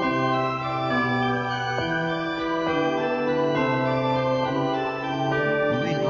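Background music of slow, sustained chords, changing about once a second.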